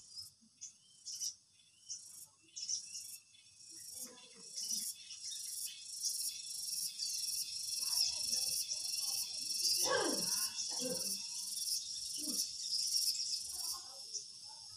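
Insects chirping in a steady, high, pulsing chorus that builds up toward the middle.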